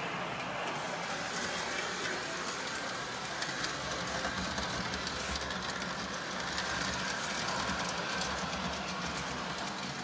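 Toy electric trains running on three-rail track: a steady low hum with a fine, rapid clicking of the wheels on the rails.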